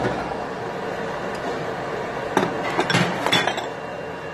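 Ceramic side-dish bowls set down on a restaurant table. There are several sharp clinks of dish on dish and tabletop about halfway through, over a steady background hiss.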